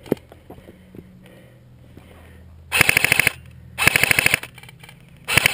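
Airsoft rifle firing on full auto: three short bursts of rapid clicking shots in the second half, the last one running on past the end.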